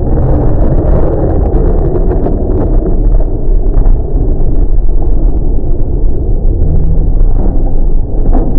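Thunder from a very close lightning strike, rolling on as a loud, steady low rumble mixed with heavy rain.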